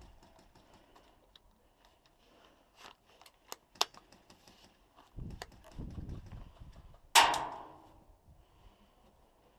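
A few sharp clicks, then a low rumbling stretch of movement or handling against the microphone, then one loud crack with a short ringing tail about seven seconds in.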